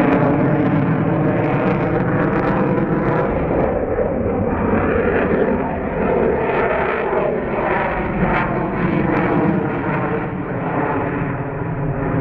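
Jet noise from the Su-35S fighter's two AL-41F1S afterburning turbofans as it manoeuvres overhead, a loud, steady rush with a few faint crackles.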